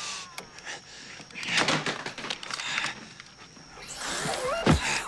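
Clicks and whirring from a motorised mechanical leg brace as its hand-held control unit is worked. Near the end comes a louder mechanical passage with a wavering whine and two heavy thuds.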